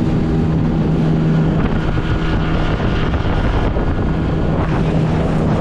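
A motorboat's outboard engine running at speed with a steady drone, under heavy wind buffeting on the microphone and the rush of water from the hull and wake. The engine tone sinks under the wind and water noise for a few seconds in the middle, then comes back strong near the end.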